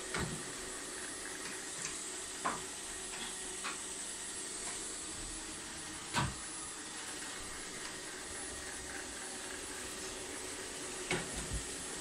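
ILIFE V50 Pro robot vacuum running steadily, its bumper knocking against wooden furniture several times, the loudest knock about six seconds in.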